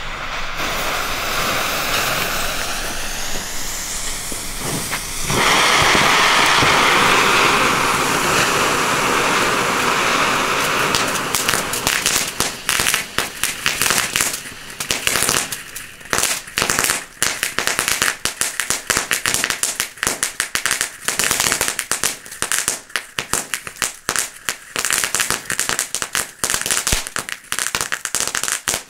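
Three small ground fountains (Glitters youth fireworks) spraying sparks: a steady hiss that grows louder about five seconds in, then dense crackling from about eleven seconds on.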